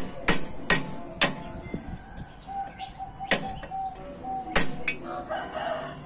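Sharp metal-on-metal hammer blows on a steel rod used as a drift, knocking a cut tab of thin galvanized box-section steel over to lock a right-angle corner joint. There are seven strikes: four quick ones in the first second and a half, one about midway, and two close together a little later.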